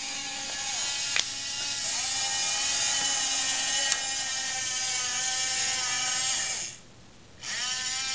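Small geared electric motors of a Roomba-mounted robot arm whining steadily as the arm moves, with two sharp clicks. Near the end the whine stops, then starts again with a rising pitch.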